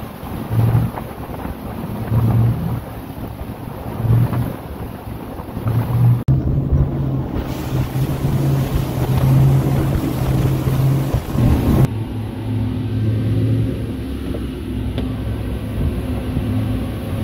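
Triple Yamaha 425 V8 outboards on a Regulator 37 center console running at speed, with wind on the microphone. The engine drone pulses in the first few seconds and changes abruptly about six and twelve seconds in.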